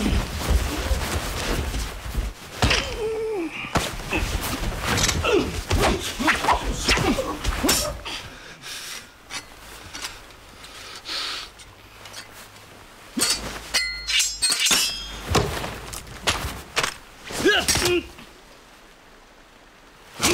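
Film sword-fight sound: katana blades striking and scraping, with a clash that rings out metallically about thirteen seconds in, heavy thuds and crashes of something breaking, and men's grunts and cries between the blows.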